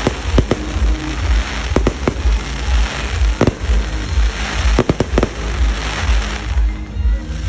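Aerial fireworks going off: a series of sharp bangs, several in quick clusters about half a second and two seconds in and around the middle, over continuous crackling.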